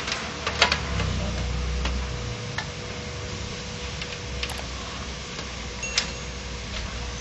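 Scattered plastic clicks and light knocks as hands work at the laser scanner unit inside an opened HP LaserJet 1010 laser printer, with a low rumble under some of them.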